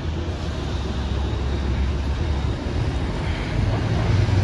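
Steady low outdoor rumble with a hiss over it, growing louder toward the end.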